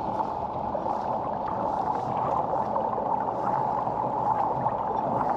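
Water rushing and splashing against the hull of a moving fishing kayak, over a steady mid-pitched hum.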